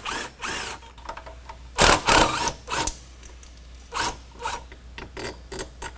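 Cordless impact gun running in two short bursts to back out 13 mm bracket bolts, the second about two seconds in, followed by a few light metallic clicks as a loosened bolt is pulled out by hand.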